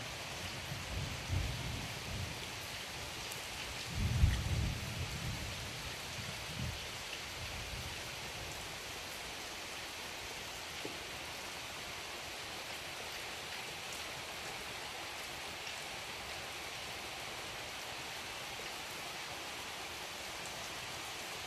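Heavy rain falling steadily on trees and fields, a constant even hiss. In the first seven seconds a few low rumbles break through, the loudest about four seconds in.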